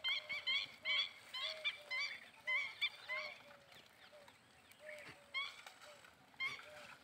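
A bird, most likely domestic fowl, calling in a quick series of short, repeated calls, about three a second for the first three seconds, then a few more spaced out near the end.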